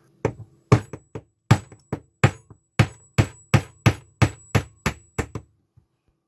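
Claw hammer tapping a makeshift punch, a nail with its tip ground off, to drive a battery stuck with corrosion out of the barrel of a fibre-optic visual fault locator. A quick series of sharp taps, about three a second, stopping a little after five seconds in.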